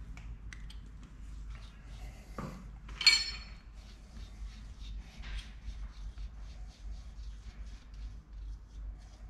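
Light metallic clinks and ticks of tools and parts being handled on a bare V6 engine block, with one sharp, ringing metal clink about three seconds in.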